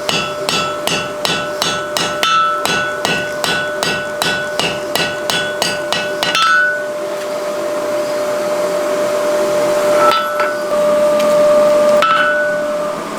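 Blacksmith's hammer striking hot mild steel on an anvil, about three ringing blows a second, while working a forge-welded collar onto a round bar. About halfway the rhythm stops and gives way to a steadier noise with a held ringing tone, broken by two single strikes.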